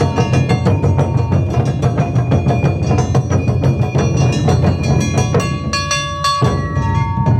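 Japanese taiko drum ensemble playing live: dense, rapid drum strikes over a heavy low drum pulse, with held melodic tones on top. The big drums drop out for about a second near the end, leaving the held tones, then come back in.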